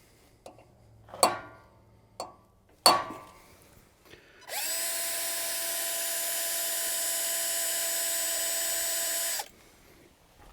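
A few sharp metallic clanks of tools being handled, then a power drill spins up and runs at a steady speed for about five seconds before stopping.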